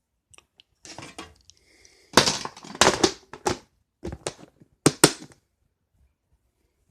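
Hard small objects clattering and knocking together as a box of old tools and electronic parts is rummaged through. There is an irregular run of sharp clacks and rattles, loudest in a few hits around the middle and again just after the two-thirds mark.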